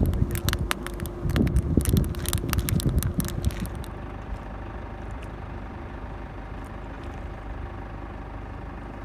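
A quick run of sharp clicks and rattles for about four seconds, then a steady low engine hum on its own.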